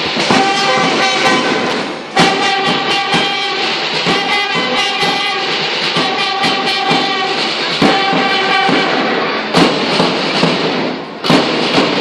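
School marching band playing a tune on wind instruments, with sharp drum beats under the melody.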